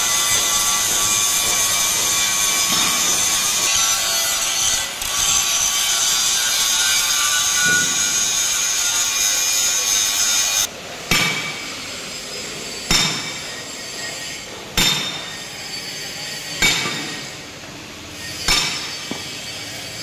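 Angle grinder grinding a steel section, a steady high grind that cuts off about halfway. Then five hammer blows ringing on the steel shaft of an EOT crane wheel assembly, about two seconds apart.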